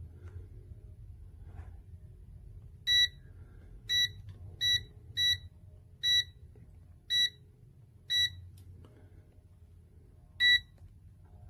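Digital multimeter beeping: eight short, high electronic beeps, all at the same pitch, spaced irregularly as if triggered one at a time by button presses or probe contacts.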